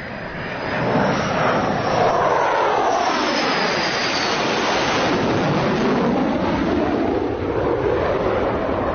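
Fighter jet passing low overhead: a loud, steady jet roar that builds in the first second, with a pitch sweep that falls and then rises again as it passes.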